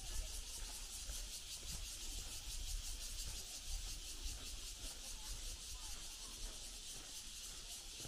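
A high-pitched insect chorus, pulsing evenly several times a second, over a low rumble.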